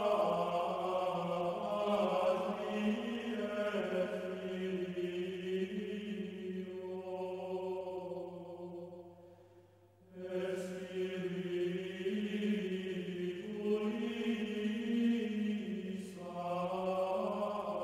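Choir singing slow, sustained chords. The singing fades almost to silence about nine to ten seconds in, then comes back.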